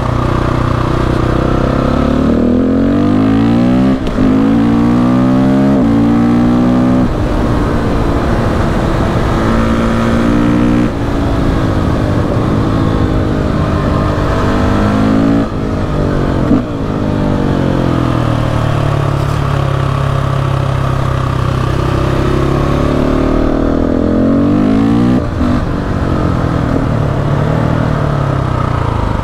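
KTM 690 SMC R's single-cylinder four-stroke engine pulling hard under a rider, revs climbing and then dropping sharply at each gear change, several times, with stretches of steadier running and rolling off between, over steady wind rush.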